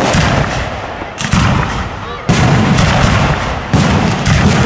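Aerial firework shells bursting in quick succession: a series of loud bangs, with new volleys about a second apart, each trailing off in a rolling rumble and crackle.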